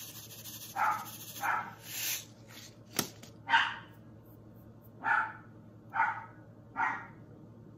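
Pet dog barking repeatedly in single short barks, about seven of them roughly a second apart.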